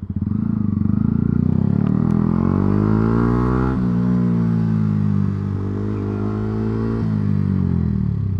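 Yamaha R125's single-cylinder four-stroke engine pulling away: revs climb steadily, drop suddenly about four seconds in as at a gear change, climb again, hold, then fall away near the end as the throttle closes.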